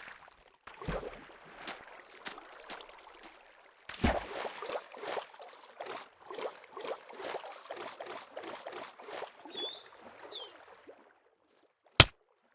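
Water splashing and sloshing in a run of uneven strokes, with a short whistle rising and falling near the end and a sharp click at the very end.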